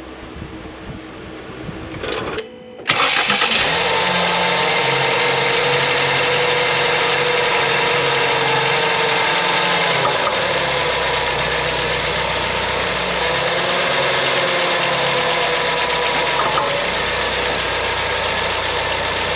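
Ford Escape's engine running steadily after a sudden start about three seconds in, its tone changing a few times along the way.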